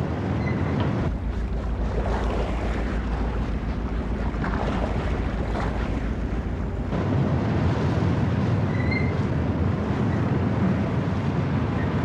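Rough sea rushing and breaking against a fishing trawler's hull, with heavy wind on the microphone. A low steady rumble runs under it for the first half, and the rush grows louder after about seven seconds.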